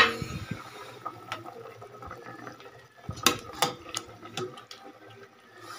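Metal ladle stirring pork and chicken in broth in a stainless steel stockpot, the liquid sloshing, with sharp clinks of the ladle against the pot: one loud clink at the start and a string of them from about three to five seconds in.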